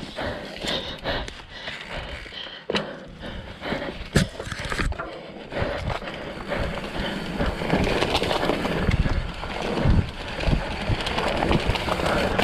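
Mountain bike going over a rough dirt trail: tyres crunching and the frame and chain rattling, with repeated knocks and one sharp crack about four seconds in. The noise grows louder and steadier over the last few seconds.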